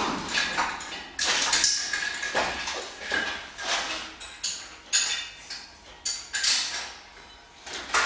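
Metal clanking and clinking as an EZ curl bar and cable attachment are handled and fitted to a cable-pulley station: a run of irregular knocks and clicks, some with short metallic ringing.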